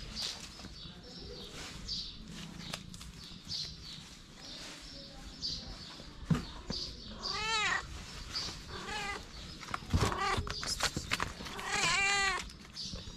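Calico cat meowing: three drawn-out meows, the last near the end the longest and loudest. A few sharp knocks come just before it.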